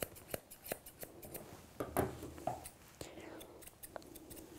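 Dog grooming scissors snipping the hair around a dog's foot: a series of quiet, irregularly spaced snips.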